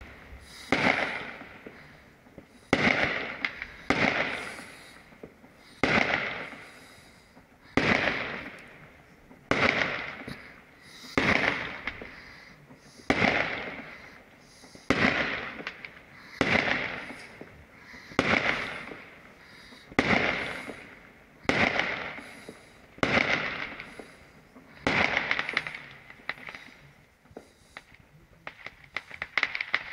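Fireworks going off: a sharp bang about every one and a half to two seconds, each trailing off over about a second. Near the end comes a quick run of crackling pops.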